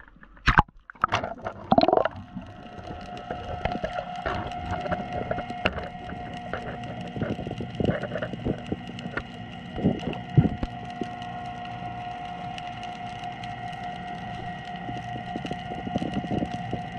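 Underwater sound from a GoPro sunk beside a harbour breakwater. In the first two seconds there is splashing and knocking as the camera goes under. After that a steady hum of several tones runs on, with scattered clicks and crackles and a few louder knocks, one about ten seconds in.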